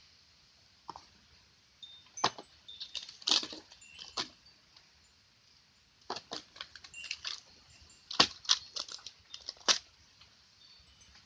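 Light clinks and clicks of small hard kitchen items being handled, in irregular clusters: a few about two seconds in, more around six to ten seconds in, with quiet gaps between.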